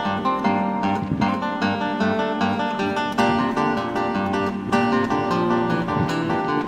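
Background music: acoustic guitar playing quick plucked notes over a bass line.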